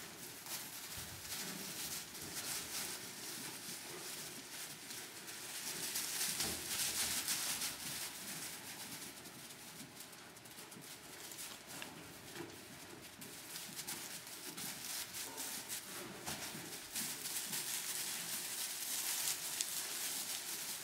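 Cormo lambs' small hooves shuffling and rustling through straw bedding, a continuous light crackle with many small clicks that swells twice as they scamper about.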